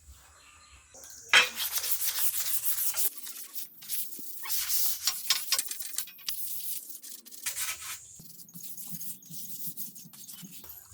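Abrasive hand rubbing on a rusty bicycle part, a series of rough strokes that come in a few bursts: a sharp start about a second in, another run around the middle and a short one later.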